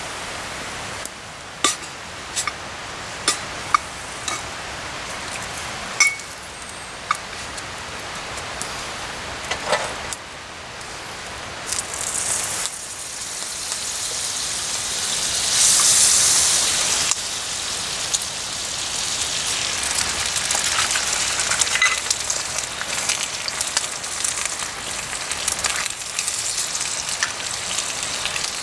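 Sausages frying in hot fat in a No. 3 Griswold cast iron skillet over a small wood fire, a steady sizzle with several sharp metal clicks of a knife against the pan in the first ten seconds. About fifteen seconds in the sizzle swells loudly as eggs go into the hot fat, then settles into steady frying.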